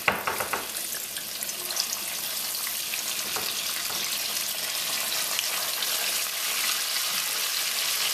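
Flour-dusted whole red snappers shallow-frying in hot vegetable oil: a steady sizzle that slowly grows louder and fuller as the second and third fish go into the pan, with a few sharp clicks at the very start.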